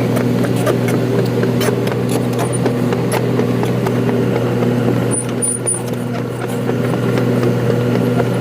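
Excavator's diesel engine running steadily, with scattered sharp clicks and knocks over it.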